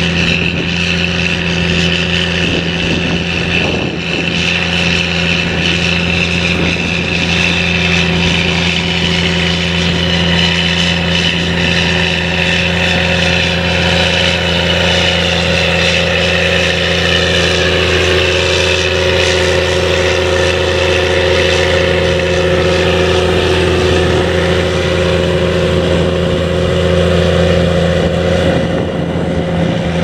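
Diesel engine of a Caterpillar Challenger MT765B rubber-tracked tractor running steadily under load, pulling a seven-furrow reversible plough through the soil.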